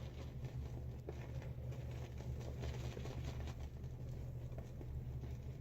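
Silvertip shaving brush swirled over a wet, hard shaving soap to load it, giving a soft, irregular wet patter of bristles, over a steady low hum.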